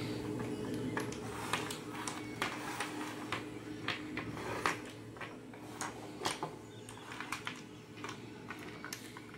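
Hardened M-seal epoxy-putty ornament pieces clicking and clattering against each other and a wooden tabletop as they are picked up and set down, in irregular knocks.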